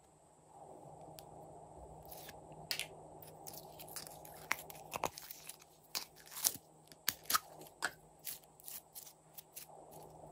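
Green slime squeezed out of a clear plastic cup and stretched by hand, giving many irregular sticky clicks and crackling pops from about two seconds in.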